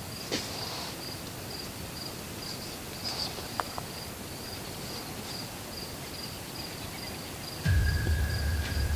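An insect chirping in a steady, even pulsing rhythm, with a few faint clicks. Near the end a low rumble and a steady high tone set in suddenly.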